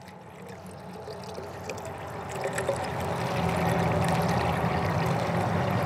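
Water poured from a plastic bottle into the Fire-Maple Star X2's one-litre anodized aluminium pot: a steady pouring stream that grows louder over the first few seconds.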